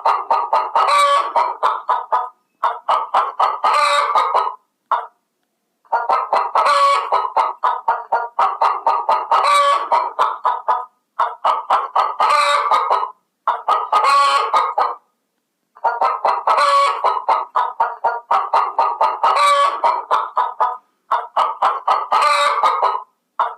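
Chickens clucking in rapid runs of short calls, cut off abruptly by brief silences every few seconds.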